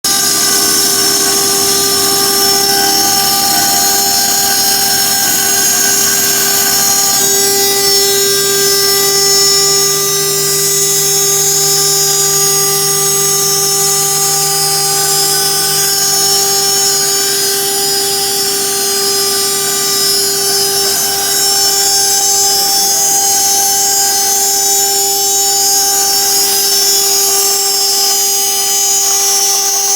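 CNC machine spindle running with a steady high whine as its cutter mills aluminium, the tone shifting slightly in pitch a few times.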